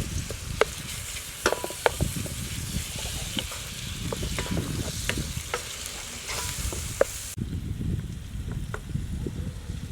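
Food sizzling in a pan while being stirred, with scattered sharp clicks of the utensil against the pan. The sizzle cuts off abruptly about seven seconds in, and a few clicks carry on after it.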